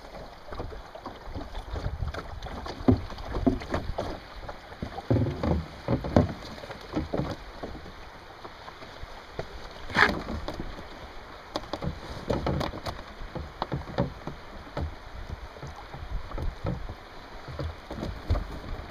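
Canoe moving downriver: water splashing and lapping against the hull under steady wind rumble on the microphone, with irregular splashy bursts and one sharp knock about ten seconds in.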